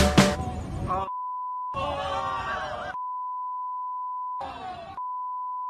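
Censor bleeps: a steady high beep tone blots out the soundtrack three times, starting about a second in, about three seconds in and about five seconds in, each lasting from half a second to a second and a half. Between them, bits of voices are left uncovered.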